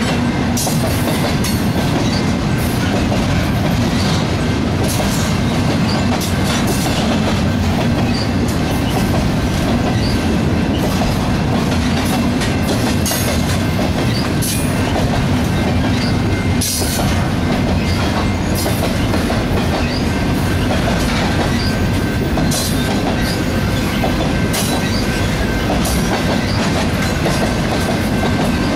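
Intermodal freight train's double-stack container cars and trailer flatcars rolling steadily past: a continuous loud rumble of steel wheels on rail with uneven clicks and clacks over the rail joints and a thin, steady wheel squeal.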